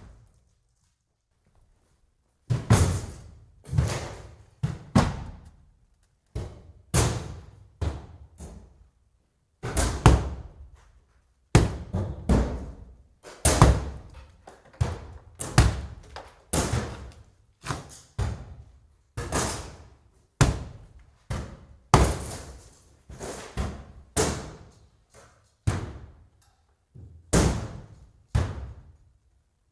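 Repeated axe blows striking the wooden boards of a cabin: heavy knocks, roughly two a second and unevenly spaced, each dying away quickly, starting about two seconds in.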